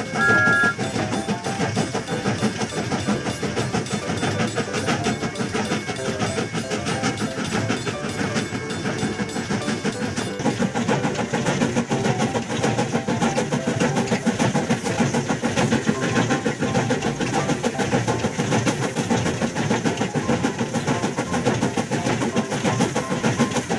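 Background music with a steady percussive beat. A short two-note horn sounds right at the start.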